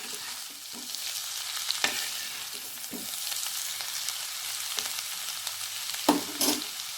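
Raw jackfruit frying in coconut oil in a pan while being stirred: a steady sizzle with the spoon scraping and knocking against the pan, with sharper knocks about two seconds in and twice near the end.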